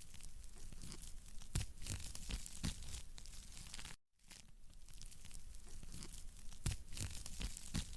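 Wood fire in a fireplace crackling, with several sharp pops. It is a short looped recording: the sound cuts out for a split second about four seconds in and starts again.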